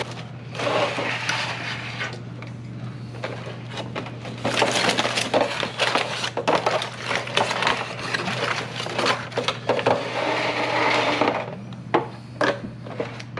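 Aluminium foil crinkling and rustling in a dense, crackly run of clicks as foil-wrapped smoked chicken is opened and handled, loudest through the middle, over a steady low hum.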